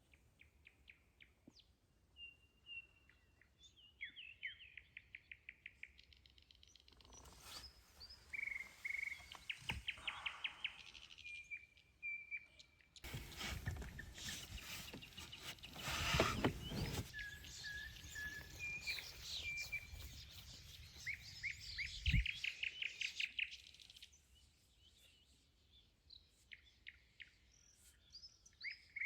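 Small birds singing: repeated series of rapid chirps and trills, with short pauses between phrases. About halfway through a rush of noise like wind on the microphone rises and falls, and a single dull thump comes a little later.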